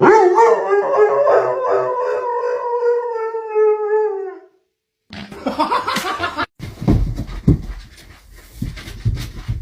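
A dog howling: one long, wavering howl held for about four seconds. It is followed by shorter clips of knocks and rustling.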